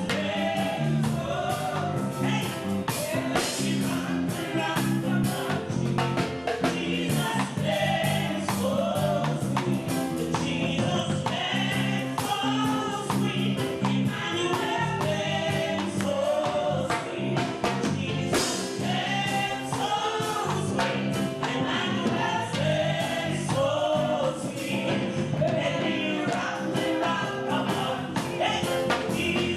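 Gospel song: voices singing over instrumental accompaniment with a steady beat.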